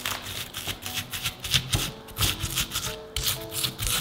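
Stone pestle grinding and crushing shallots, garlic, salt and pepper on a flat stone mortar (Indonesian ulekan and cobek): a quick, irregular run of gritty rubbing and crunching strokes.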